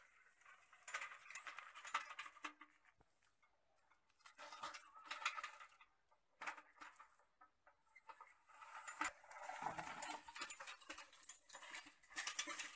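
Bicycle rolling over a dry dirt and gravel path: crackly crunching of the tyres on grit and dry grass, coming in several spells with short pauses between.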